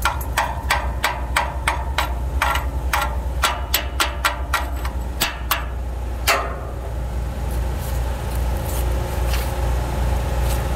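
Chipping hammer knocking slag off a 7018 weld bead on steel, about three sharp metallic taps a second, ending about six seconds in with one harder ringing strike. A steady low engine hum runs underneath throughout.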